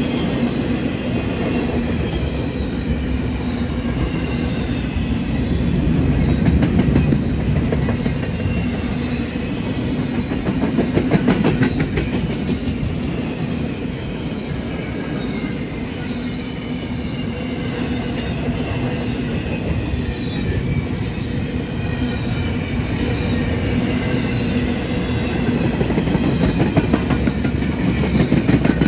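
Empty intermodal well cars of a freight train rolling past at close range: steady rumble and clatter of steel wheels on the rails, with high-pitched wheel squeal coming and going and a burst of sharp clicks about eleven seconds in.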